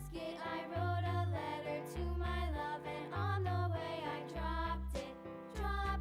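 Children's background music: a melody line over a bass that steps between notes about every half second, with occasional percussion hits.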